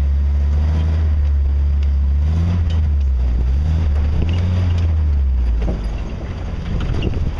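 Jeep engine and exhaust running with a deep, steady low note as it drives slowly over trail. Scattered knocks and rattles come from underneath, which the driver takes for the muffler, damaged and banging around. The engine eases off briefly about six seconds in.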